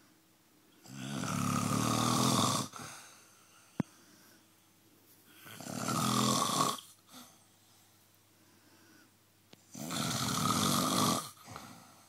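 A sleeping person snoring: three loud snores, each about a second and a half long, roughly four seconds apart, with a single sharp click between the first two.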